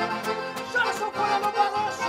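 Live band music led by piano accordions, with an acoustic guitar strummed underneath and a steady beat. A high held melody line comes in about three-quarters of a second in.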